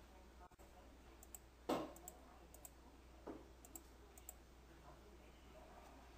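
Faint computer mouse clicks, a handful of short ticks with the strongest about a second and a half in, over a low steady hum.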